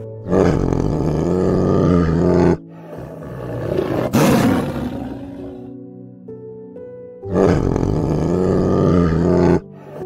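A big cat roaring three times, each roar long and drawn out, over soft background music.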